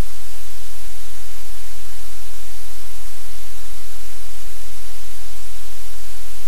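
Loud, steady static hiss with a low hum underneath; no other sound stands out from it.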